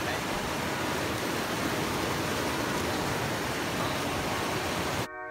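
Whitewater rapids churning and rushing past fallen tree trunks, a steady roar of water. It cuts off suddenly near the end as music begins.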